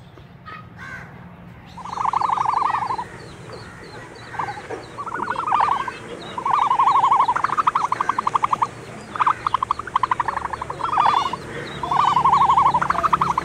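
Repeated animal calls: several bursts of a fast, rattling trill, each about a second long, starting about two seconds in.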